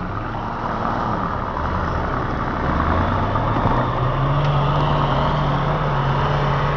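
Off-road 4x4's engine running as the vehicle drives past close by, growing gradually louder, with its pitch rising a little about four seconds in.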